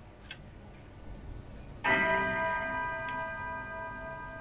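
A small click, then about two seconds in a hammer of a Hermle 451-053H grandfather clock movement strikes the steel chime rods, which ring on, slowly fading. It is the repaired movement's chime side working on test.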